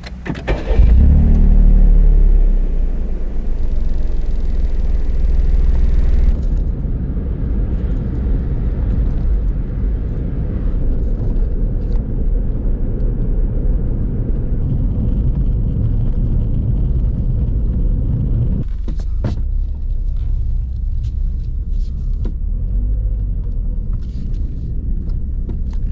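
Daihatsu Copen running on the road: a steady low rumble of engine and road noise, loudest in the first couple of seconds.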